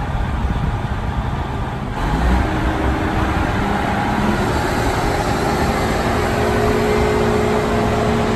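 Mobile crane's engine running steadily while lifting a steel truss. About two seconds in it gets louder, and a whine climbs in pitch and then holds steady.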